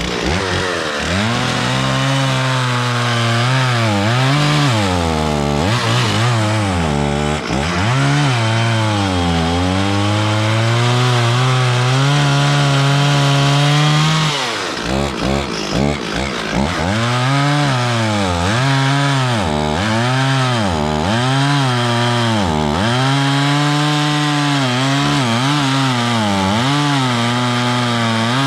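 A Stihl 440 two-stroke chainsaw running at high revs while cutting wood, its engine note repeatedly sagging and recovering as the chain bites into the cut. About halfway the note flutters quickly for a couple of seconds, then settles into regular dips about every second and a half.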